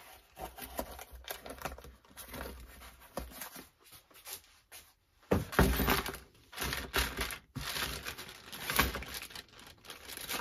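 Cardboard box and a clear plastic bag of small brass fittings being handled: crinkling plastic and rustling cardboard with a few sharp clicks, quiet at first and louder from about halfway.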